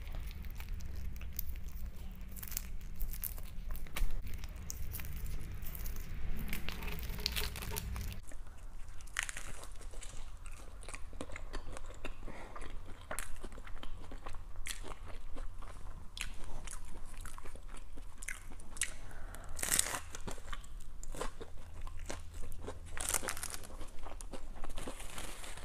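Crunchy hard taco shell being bitten and chewed close to a lapel mic, with many sharp, irregular crunches, along with some crinkling of the paper wrapper.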